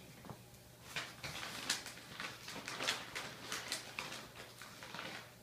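Long-haired calico cat chewing crunchy treats: an irregular run of quick small crunches and clicks starting about a second in and lasting some four seconds.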